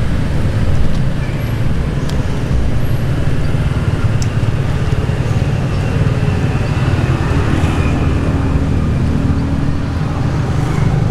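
Steady low rumble of motor traffic, with a few faint clicks.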